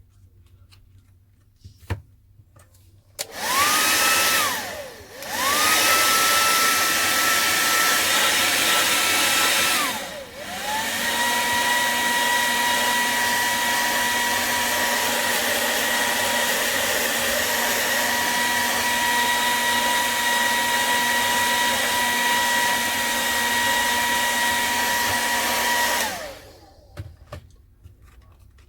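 Hot-air blower (heat gun or hair dryer) running with a steady whine, heating the phone to soften the glue holding its back cover. It starts about three seconds in and cuts out briefly. About ten seconds in it drops off and comes back at a lower pitch, then is switched off near the end.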